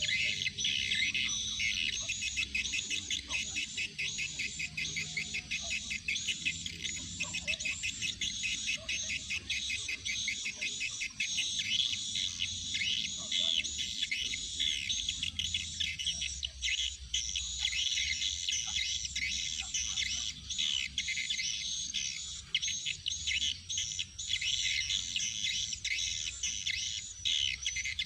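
Birds chirping continuously, a fast, unbroken run of high arching chirps, several a second.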